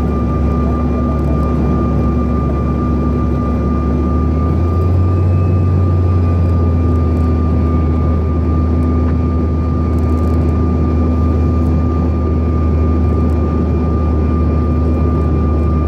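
Cabin noise of a Bombardier CRJ 900 airliner: its rear-mounted turbofan jet engines running steadily with a constant high whine over a low rumble, heard from inside the passenger cabin. The low rumble grows louder about four and a half seconds in.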